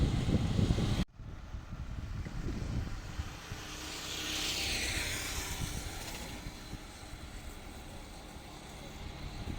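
Loud low rumble that cuts off abruptly about a second in, then a vehicle passing, its sound rising in level and sliding down in pitch in the middle before fading.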